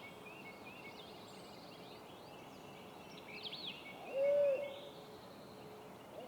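Songbirds chirping and whistling in the dawn woods. About four seconds in comes a single loud, held owl hoot that drops in pitch at its end.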